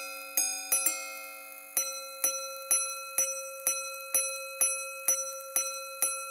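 Patek Philippe Grandmaster Chime's repeater striking its tuned gongs: a few high-low double strikes, then from about two seconds in a steady run of single high strikes about two a second, each ringing on. This is the pattern of a minute repeater sounding the quarters and then the minutes.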